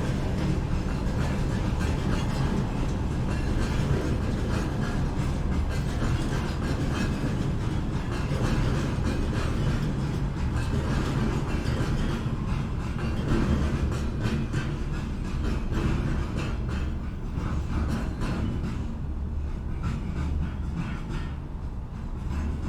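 A train running along the tracks: a steady low rumble with rapid clacking of wheels over the rail joints, fading gradually over the last few seconds.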